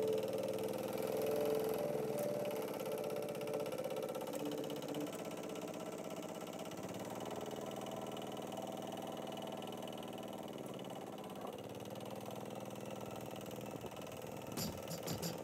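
Two-wheel walking tractor's single-cylinder diesel engine running steadily while it pushes soil with a front dozer blade, its pitch dipping and rising a few times.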